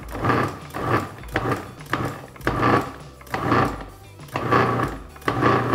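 Food processor motor pulsing in about seven short bursts, roughly one a second, its blade cutting liquid into a flour-and-butter mixture to bring pie dough together.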